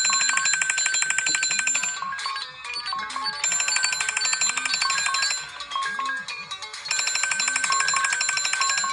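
Several smartphones ringing at once, their ringtones and alarm tones layered over each other. A fast trilling ring sounds in bursts of about two seconds with short pauses, over a steadily repeating melodic tone.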